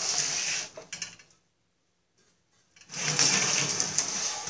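Snapper rider drivetrain turned over by hand at the axle, the axle and gears turning with a mechanical whir in two spells: one at the start lasting about a second and a half, and another from about three seconds in.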